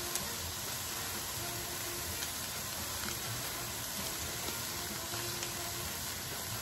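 Chopped onions, peppers and cilantro sizzling steadily in olive oil in a pot.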